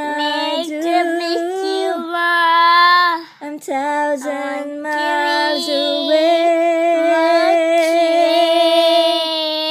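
A young child's high voice singing long, drawn-out notes without clear words: one phrase of about three seconds, then a single note held for about six seconds with a slight waver.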